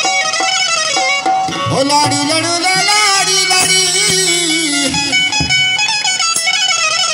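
Live Balochi folk music in an instrumental passage without singing: a benju (Balochi keyed banjo) playing with other accompanying instruments.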